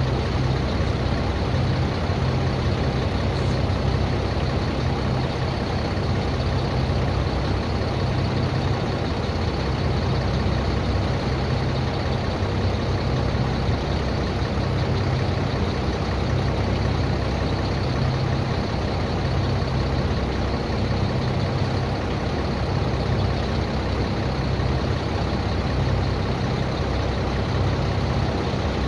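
McCormick Farmall Cub tractor's small four-cylinder engine running steadily.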